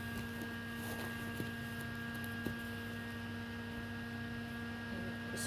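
Steady electrical hum made of several steady tones, with a couple of faint knocks in the first half.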